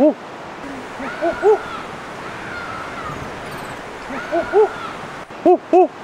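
Short hooting calls, mostly in close pairs, each rising then falling in pitch. One comes right at the start and three more pairs follow, the last two pairs near the end, under faint high sliding whistles.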